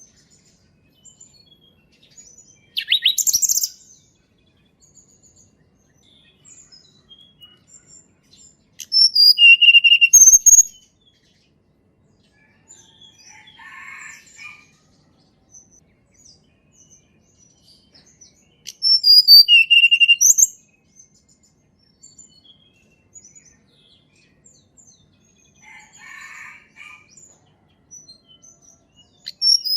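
Wild song of a tledekan gunung, a Javanese mountain forest bird. Short phrases of high, clear whistled notes come about every ten seconds, some ending in a quick falling slur. Fainter calls and scattered chirps fill the gaps between them.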